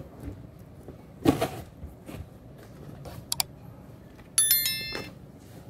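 Cardboard toy packaging being handled, with scattered rustles and taps and a quick double click. About four and a half seconds in comes a short, bright chime sound effect that fades within half a second.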